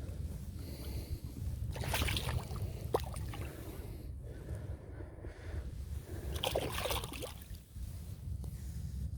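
Water sloshing and splashing in a few short bursts about two, three and seven seconds in, over a steady low rumble.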